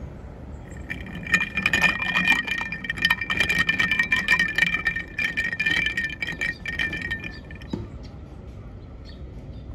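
Ice cubes rattling and clinking quickly against the inside of a glass mason jar as an iced coffee with milk is stirred with a straw, the glass ringing under the clinks; the stirring stops near the end.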